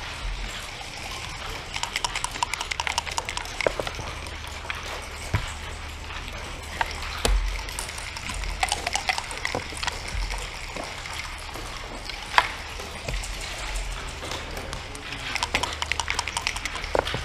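Backgammon checkers and dice clicking and clattering on a wooden board: scattered clusters of light taps, with one sharper knock about twelve seconds in, over a low steady room hum.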